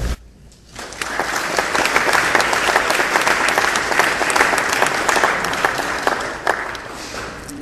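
Audience applauding: dense clapping that starts under a second in and dies away near the end.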